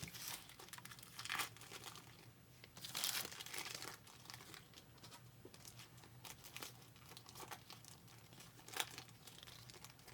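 Trading card pack wrappers crinkling and tearing as packs are opened, in scattered bursts of rustling, the longest about three seconds in.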